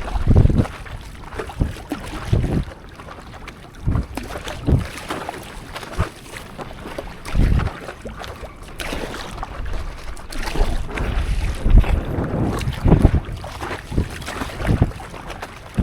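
Water splashing and slapping around a stand-up paddleboard and paddle at sea, with wind buffeting the microphone in irregular low thumps every second or two.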